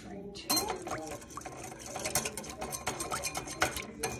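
Wire whisk beating an oil-and-vinegar dressing in a bowl: a quick, uneven run of clicks and taps against the bowl.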